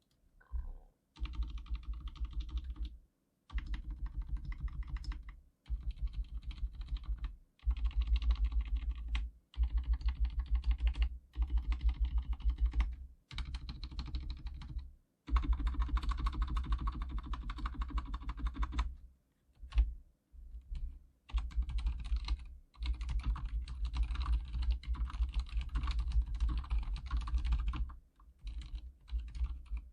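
Archon K79 full-size keyboard with silent red linear switches being typed on fast, in runs of a few seconds broken by short pauses. The keystrokes come as a dense stream of soft clicks over a low thud.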